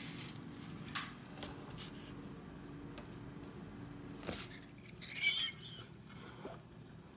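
Metal sheet pan being set onto a wire cooling rack: a short high metallic squeak and scrape about five seconds in, after a few light clicks over a low steady hum that stops just before it.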